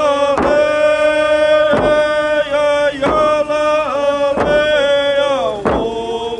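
Coast Salish drumming and singing: a drum struck in a slow, even beat, about once every 1.3 seconds, under long held sung notes.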